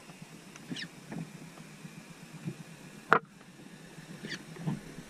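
Underwater sound picked up through a GoPro's waterproof housing: a faint steady hiss with scattered small clicks and knocks, and one sharp, loud knock a little after three seconds in.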